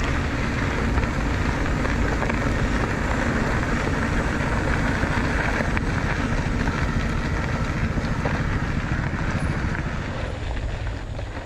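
Motorcycle running at speed with wind rushing over the microphone, steady throughout and easing off a little near the end.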